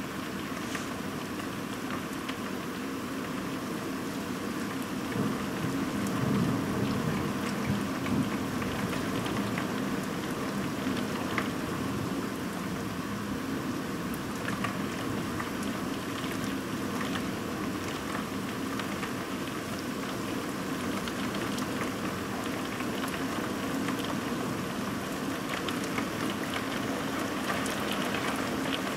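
Steady rain falling during a thunderstorm, with the taps of single drops throughout. There is a louder, lower swell about six to eight seconds in.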